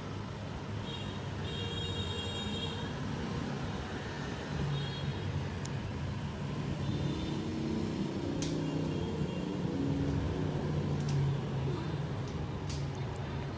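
A steady low rumble and hum with a shifting drone, and a few faint clicks in the second half.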